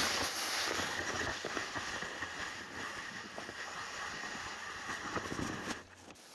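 Snow shovel blade dragging and scraping through snow, heard through a camera mounted on the shovel as a steady rushing scrape; it stops abruptly near the end.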